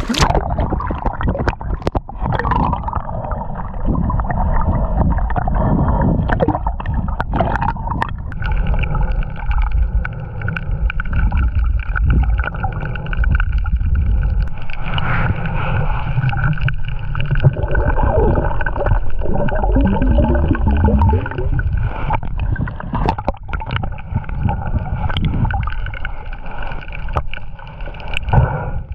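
Water gurgling and sloshing, heard underwater through a mask-mounted action camera's housing during snorkelling: dull and muffled, with the high sounds gone after the first couple of seconds.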